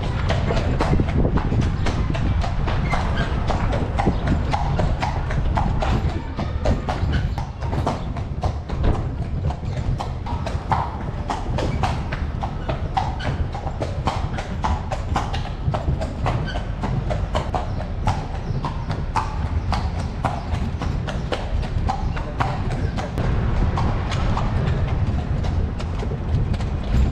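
Carriage horse's hooves clip-clopping on the street in a steady run of sharp strikes, over a continuous low rumble.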